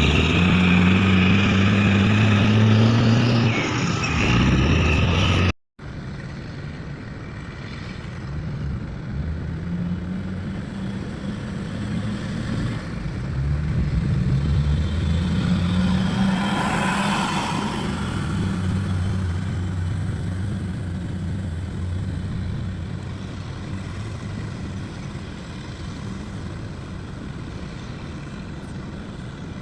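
Motor vehicle engine running with a low, shifting hum. The sound cuts out abruptly for a moment about five and a half seconds in, then carries on, swelling louder a little past the middle.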